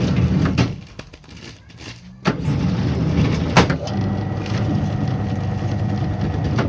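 Motorised baglog press machine for packing mushroom substrate into plastic bags, running with a steady hum. It stops a little under a second in and starts again about two seconds in with a sharp knock, then runs on through a pressing cycle.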